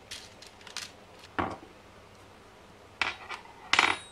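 Small metal hardware and a perforated circuit board fitted with connector blocks being handled on a workbench: five or so separate clinks and clatters, the loudest near the end.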